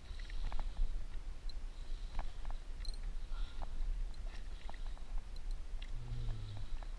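Wind buffeting a camera microphone on a small boat at sea, a steady low rumble, with scattered light ticks and clicks throughout and a brief low hum about six seconds in.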